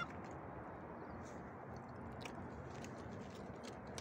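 Faint, steady outdoor background noise with a few scattered small clicks.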